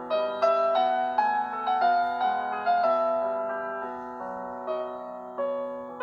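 A preloaded Google Pixel 3a ringtone playing: a piano-like keyboard melody of struck, decaying notes, about three a second, over a held low note.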